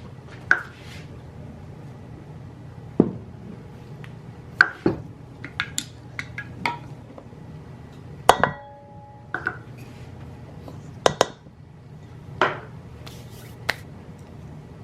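Kitchenware clinking and knocking as ingredients are measured and mixed: about a dozen separate short knocks and clinks, one about eight seconds in ringing on briefly with a clear tone.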